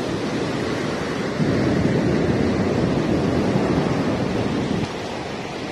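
Steady rushing noise of wind on the microphone mixed with surf, a little louder from about a second and a half in until near the end.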